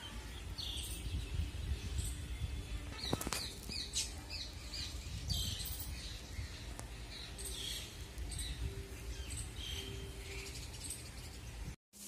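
Sparrows chirping: many short, high chirps scattered irregularly, over a steady low rumble.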